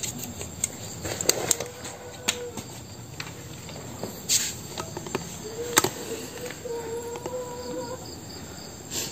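Crickets chirping steadily in the night, with scattered sharp clicks and knocks.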